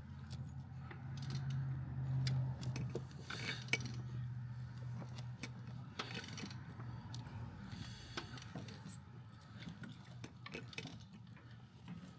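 Scattered light metallic clinks and ticks of the BMW N57 timing chain and hand tools as the engine is turned over by hand, feeding the new chain in behind the old one. A steady low hum runs underneath, strongest in the first few seconds.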